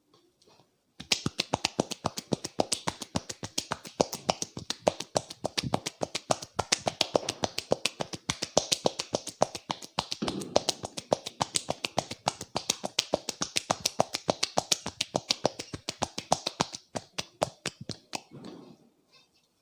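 Rapid percussive hand strikes of a head massage, many slaps a second on the scalp. They start about a second in and thin to scattered strikes near the end.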